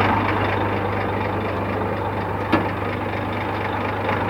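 Scania 420 truck's diesel engine idling steadily, with one sharp click about two and a half seconds in.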